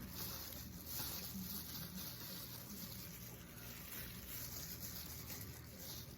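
Faint eating sounds: quiet chewing and mouth noises, with a few soft clicks, over a low hiss.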